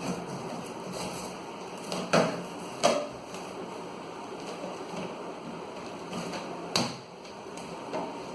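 A cardboard box and its packing being handled and opened, with three sharp knocks about two, three and seven seconds in, over a steady hiss.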